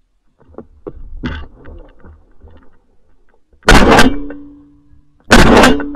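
Two very loud shotgun shots about a second and a half apart, each trailing off over about half a second, after a few seconds of rustling and small clicks.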